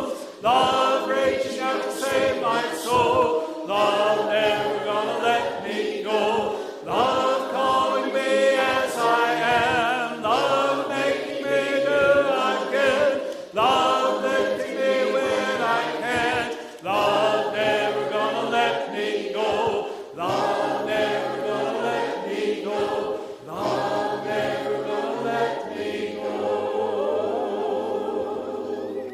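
Choir singing a worship song in sustained phrases over steady low accompanying notes, dying away near the end.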